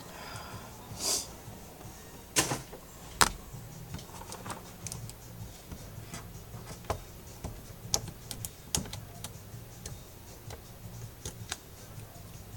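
Scattered small clicks and taps of tools and phone parts being handled on a repair bench. A brief hiss comes about a second in, and two sharper clicks follow a couple of seconds later.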